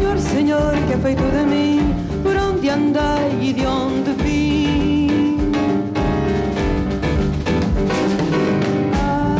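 A woman singing a slow song with vibrato on the held notes, backed by a live band with a drum kit.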